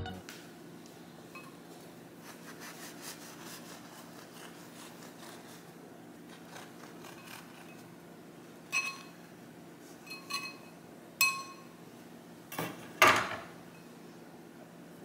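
A knife sawing through a baked bagel on a ceramic plate, a faint rasping, followed by several sharp clinks of the blade and bagel against the plate in the second half, the loudest near the end.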